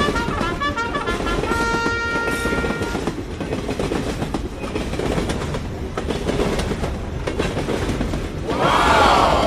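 Train running along the rails, a steady rumble with wheel clatter. A few held musical notes sound in the first three seconds, and a loud horn-like tone bends up and then down near the end.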